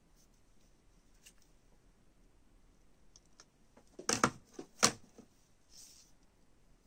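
Hollow clear plastic ornament ball handled in the hands: a quiet stretch, then a short cluster of sharp clicks and taps about four seconds in, the loudest two a little over half a second apart.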